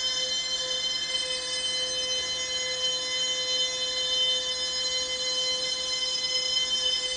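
A man's strained, high-pitched vocal noise, held steady and unbroken through a forced, fixed grin, played back from a video projected in a room.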